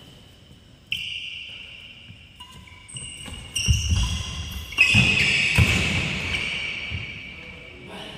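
Badminton doubles rally on a wooden indoor court: sharp racket strikes on the shuttlecock, shoes squeaking on the floor, and heavy footfalls as players lunge and move. It is busiest about halfway through.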